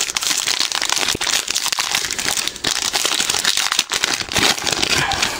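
Plastic trading card pack wrapper crinkling and crackling as it is torn open and handled; the crinkling stops near the end.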